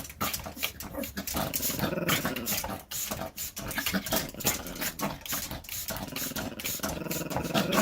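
A dog growling, with many short clicks and scuffing noises.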